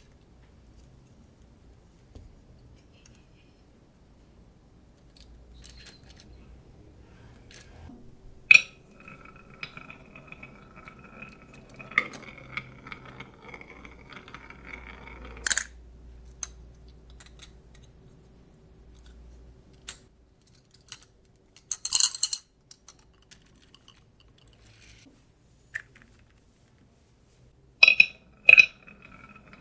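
Marbles rolling and clacking through a marble run: scattered sharp clicks and knocks of marbles hitting track pieces and each other, with two longer stretches of a steady ringing hum as a marble rolls along a track, the first ending with a loud clack.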